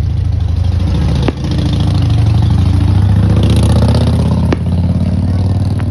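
An engine running close by with a steady low hum, cut by three sharp firework cracks: about a second in, about four and a half seconds in, and near the end.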